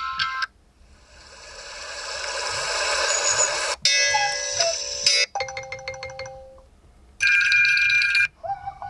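Google Pixel 6 alarm sounds previewed one after another: a chime cut short, then a sound that swells steadily louder for about three seconds, then several short electronic melodies and pulsing tones, each cut off abruptly as the next one starts.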